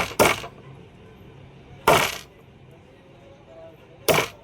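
Sharp metallic knocks: one just after the start, one near the middle and one near the end, each ringing briefly, typical of metal parts or a tool striking metal during motor repair work.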